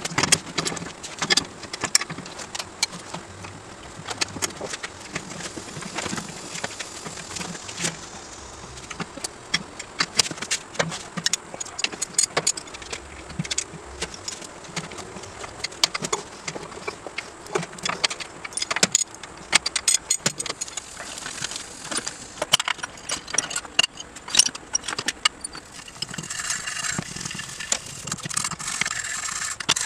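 Irregular metal clinks and knocks from a motorcycle rear wheel being handled and fitted into a bare chopper frame. Near the end comes a denser jingling rattle from the small metal parts of a drum brake backing plate being worked on.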